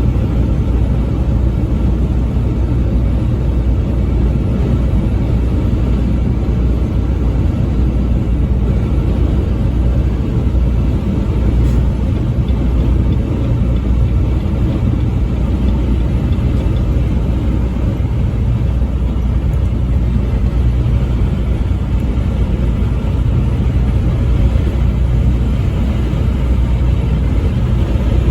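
Tractor-trailer truck cruising on the interstate: a steady low engine drone under constant road rumble, unchanging throughout.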